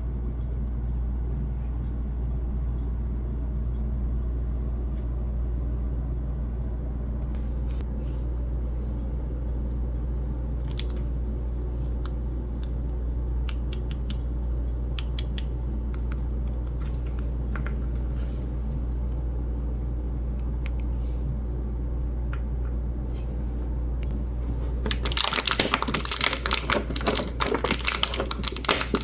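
Small plastic toy pieces being handled: scattered light clicks and taps over a steady low hum, turning about 25 seconds in into rapid, dense clicking and crinkling.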